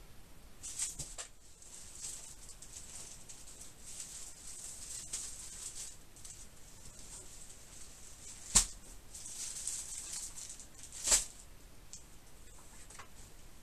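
Magazines being handled, with paper rustling as glossy pages are pulled and leafed through. Two sharp slaps stand out, about eight and a half and eleven seconds in, as a magazine is slapped or dropped.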